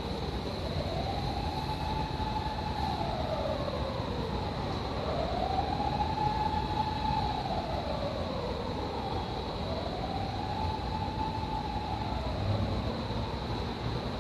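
A wailing siren that rises and falls slowly, about three times, each rise and fall taking some four to five seconds.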